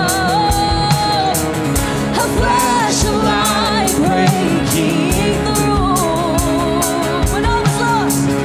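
Live worship band playing: a woman sings the lead melody with long, wavering held notes over strummed acoustic and electric guitars, with drums keeping a steady beat.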